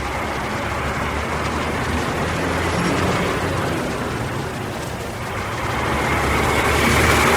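Bus engine running with a steady low hum under road and traffic noise, growing louder near the end.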